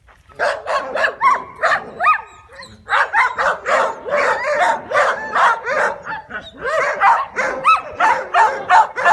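Young dog barking and yipping excitedly, several rapid yaps a second, with a short break about two and a half seconds in.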